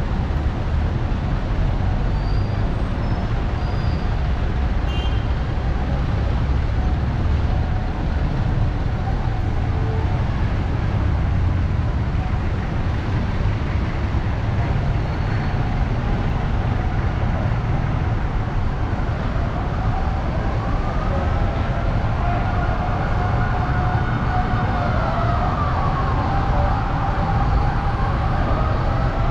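Steady rumble of heavy road traffic, with a siren wailing up and down in pitch from about two-thirds of the way through.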